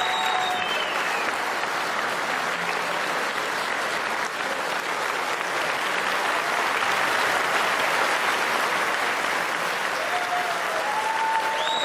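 Audience applauding steadily, with a few shouts from the crowd near the end.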